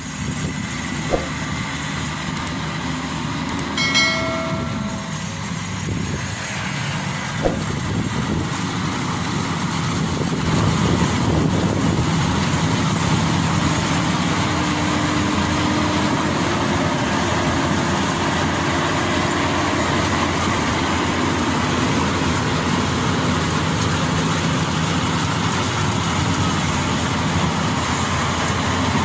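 Maxxi Bimo 102 rice combine harvester's diesel engine and threshing machinery running steadily while it cuts and threshes rice. It gets somewhat louder from about ten seconds in, with a brief tone about four seconds in.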